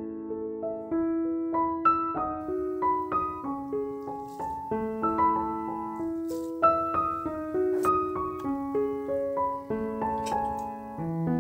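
Background piano music: a steady, unhurried melody of single notes and chords.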